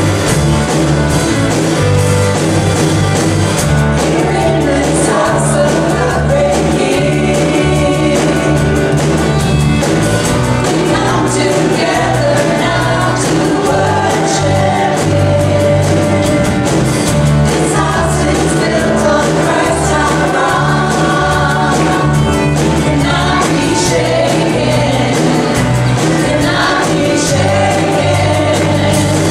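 Live church worship music: a singing lead over a band, with sustained bass notes and a steady beat, for a congregational worship song.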